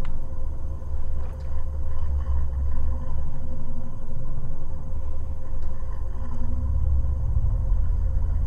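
Deep rumbling drone from the film's sound design, swelling and easing in waves, with a thin steady hum above it.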